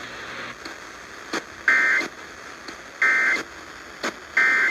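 Emergency Alert System end-of-message data bursts heard over a radio broadcast. They come as three short, loud two-tone digital squawks about a second and a quarter apart, marking the end of the severe thunderstorm warning. A steady radio hiss with a few faint clicks runs between them.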